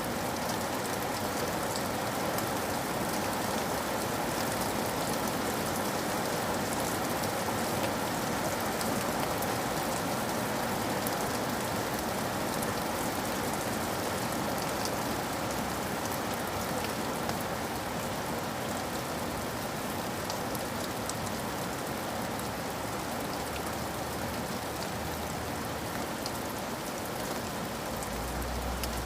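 Steady rain falling, an even hiss with scattered small drop ticks. A low rumble comes in near the end.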